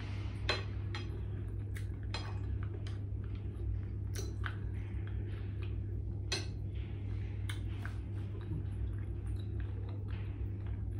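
Spoon and fork clinking and scraping against ceramic bowls now and then during eating, with chewing in between, over a steady low hum.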